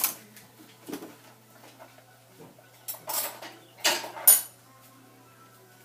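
Metal cutlery clinking and rattling against dishware and the dishwasher rack as forks and spoons are picked out. There is a sharp clink at the start, a lighter one about a second in, and a louder run of clattering near the end.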